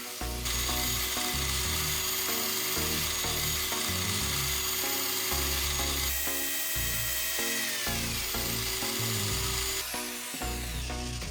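Background music over the steady whine of a small power tool running, which slows with a falling pitch near the end.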